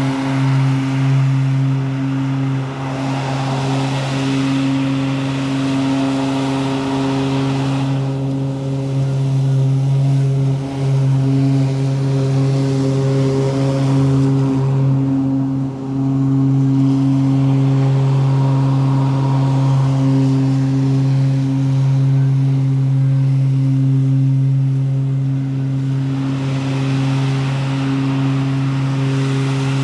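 Zero-turn riding mower running steadily while mowing thick grass: a constant pitched drone with a hiss over it that swells in the first few seconds and again near the end.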